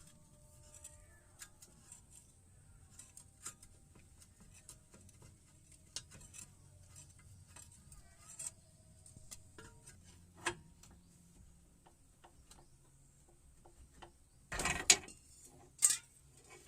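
Scattered light clicks and taps over a faint low hum, with two louder short clatters near the end.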